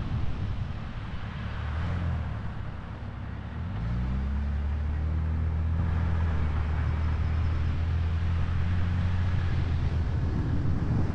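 An engine running: a low hum that rises in pitch about four seconds in and then holds steady, with a rushing noise underneath.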